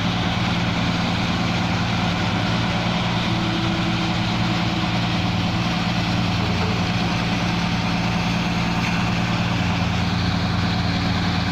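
Mitsubishi Fuso truck diesel engine running steadily at a constant speed, with a steady low drone.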